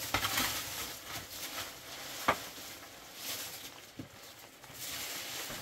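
Short straw hand broom sweeping dry leaves and debris across a dirt floor in repeated scratchy swishes, with a single sharp knock a little over two seconds in.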